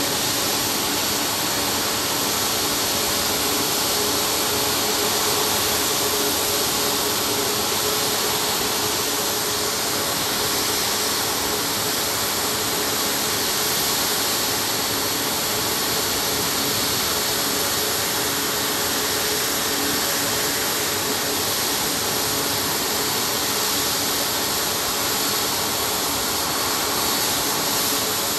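CFM LEAP-1B turbofan on a Boeing 737 MAX 8 running steadily after start: an even rushing jet noise with a faint steady high whine, unchanging in level.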